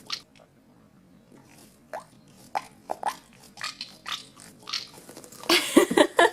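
A sticky squishy toy being squeezed and pulled in the hands: scattered soft sticky clicks and squelches, then a louder squelching burst with a wavering pitch near the end.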